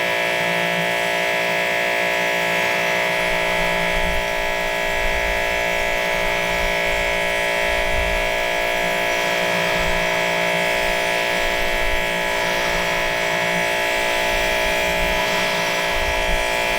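2300 PSI electric pressure washer running steadily with a whine, its water jets spraying through a 15-inch surface cleaner. The washer is underpowered for this cleaner, which is struggling and skipping.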